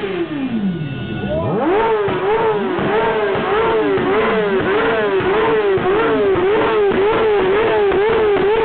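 Sport motorcycle engine revved hard, the revs falling back once and then climbing to the rev limiter about a second and a half in. From there it is held on the limiter, the revs bouncing quickly up and down a few times a second as the limiter cuts in and out.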